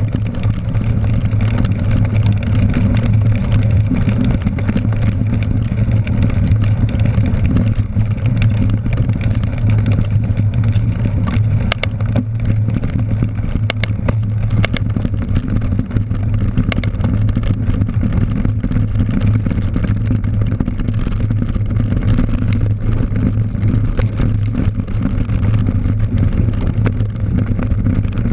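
Steady low rumble of wind and rolling tyres picked up by an action camera on a cyclocross bike ridden hard over grass and dirt. A few sharp clicks and rattles come around the middle.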